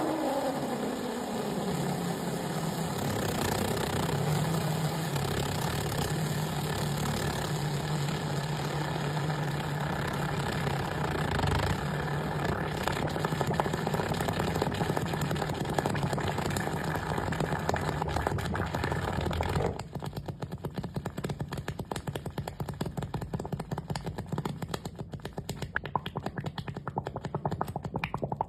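A machine running with a steady low hum and a noisy whir. About twenty seconds in it drops in level and gives way to a fast, irregular clatter of clicks.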